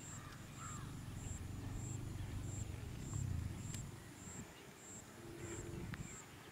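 Outdoor wildlife ambience: a high chirp repeating evenly about twice a second, with a few short bird calls. A low rumble runs through the first three seconds or so, loudest a little after three seconds, then fades.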